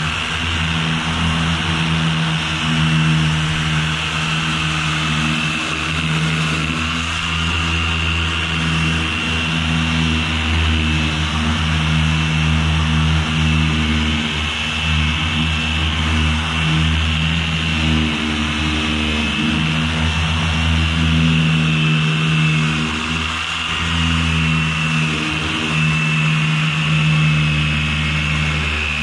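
Corded electric orbital sander running steadily against a fiberglass boat hull, sanding an epoxy fairing repair. A low motor hum sits under a steady high whine and the hiss of the pad on the surface, shifting slightly in level as the sander is pressed and moved.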